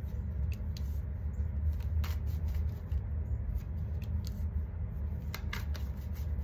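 Tarot cards being shuffled and handled, a scatter of short, irregular clicks and flicks, over a steady low rumble of background noise.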